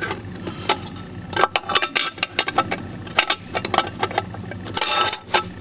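Steel clutch plate clinking and scraping against the clutch pack and the splined aluminium case of a Chrysler 42RLE transmission as it is worked into place by hand. It makes many small irregular metallic clicks, with a short scrape near the end.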